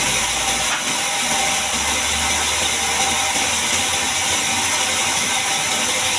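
Band sawmill running steadily: a loud, even hiss with a high whine, and a low hum that swells a couple of seconds in.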